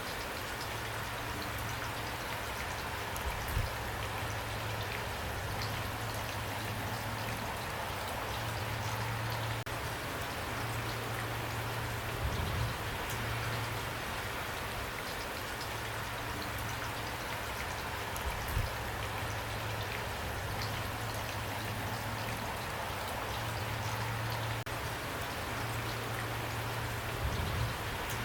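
Steady rain falling, with a faint low hum that comes and goes and a few brief low thumps.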